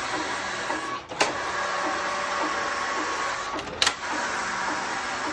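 Passap E8000 knitting machine's motor-driven lock running steadily along the needle beds while knitting rows of a tubular hem. A brief dip and a sharp click come about a second in and again nearly four seconds in.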